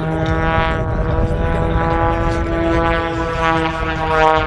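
Propeller airplane's engine droning steadily in flight overhead, its pitch shifting slightly near the end.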